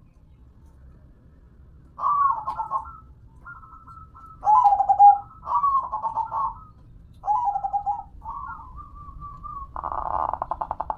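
Zebra dove (perkutut) cooing in a series of rhythmic phrases after a short pause. Near the end a rapid, evenly pulsed sound starts and keeps going.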